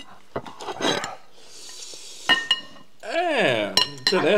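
A spoon scraping and scooping food in a glass bowl, with a sharp clink against the bowl a little past two seconds in. Over the last second or so a voice calls out with its pitch swinging up and down.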